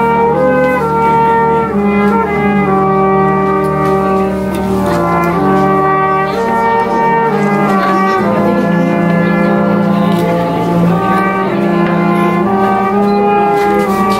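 Brass music playing slow, held chords that change every second or two.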